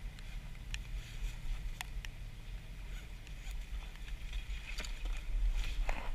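A small boat's motor running steadily, a low hum, with scattered sharp clicks over it.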